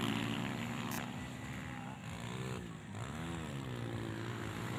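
Motocross dirt bike engines running, one revving up and easing off twice about halfway through.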